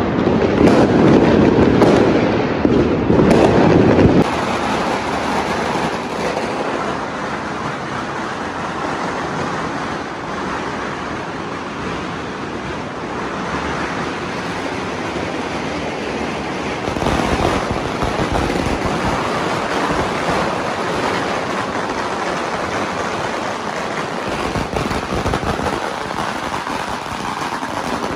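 Strings of firecrackers going off in a continuous rapid crackle of pops. It is loudest for the first four seconds, then settles into a steadier dense crackling that swells again a little past halfway.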